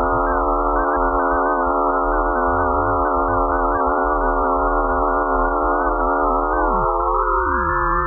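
Synthesized drone of many held, clashing tones. Near the end some tones slide downward while others glide upward.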